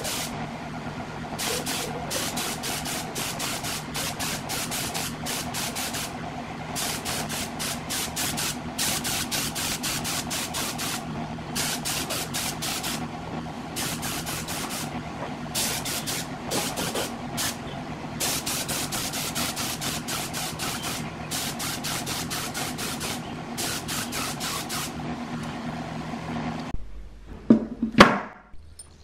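Gravity-feed spray gun spraying paint in short repeated bursts of hiss, over a steady motor hum from an air compressor. Near the end the spraying stops and there are a few sharp knocks.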